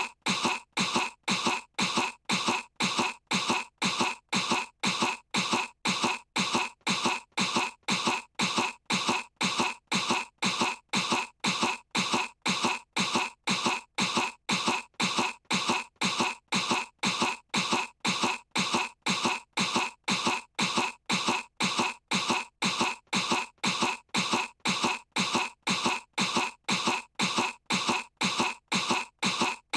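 A young girl's cartoon voice putting on a fake cough, the same short cough repeated evenly about twice a second as a loop.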